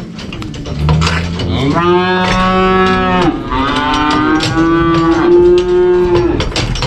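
Cattle mooing: several long drawn-out moos, a deeper one running under higher ones, from about a second in until shortly before the end.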